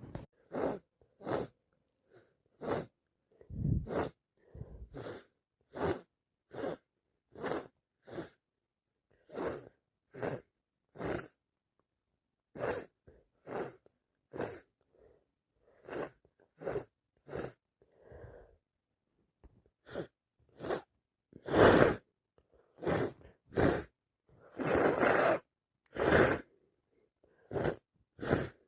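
A person with a heavy head cold sneezing and sniffing over and over, in short sharp bursts about once a second with quiet gaps between. A few longer, louder sneezes come in the last third, the loudest about three-quarters of the way through.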